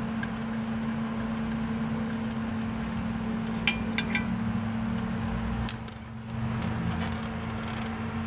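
A few light metallic clinks and a brief ring around the middle as a steel brake line bracket is handled on a car's front steering knuckle, over a steady low hum.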